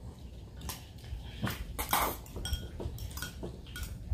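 Metal forks clinking and scraping against small glass bowls while noodles are slurped, in a series of short clicks with a louder noisy stretch about two seconds in.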